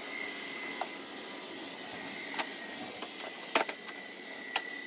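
Several short sharp clicks and knocks of plastic body panels and the seat being pressed and snapped into place on a small ATV. They come over a steady hiss with a faint high whine, and the loudest clicks come about three and a half seconds in.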